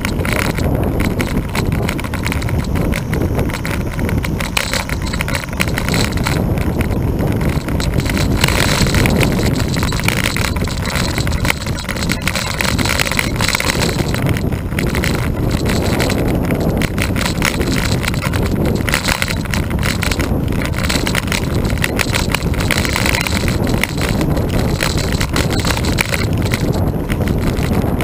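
Steady rush of wind over the microphone of a camera riding on a moving road bicycle, with road-bike tyres rolling on asphalt.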